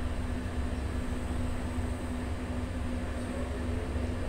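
Steady low machinery rumble with a constant hum over it, unchanging throughout.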